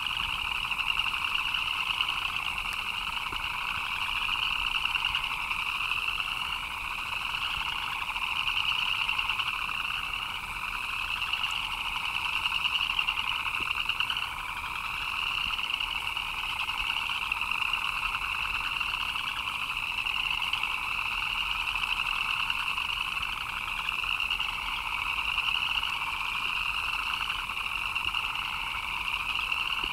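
A dense chorus of frogs calling without a break, two overlapping layers of rapid trilling, one higher-pitched than the other, the higher layer swelling in repeated rising calls every couple of seconds.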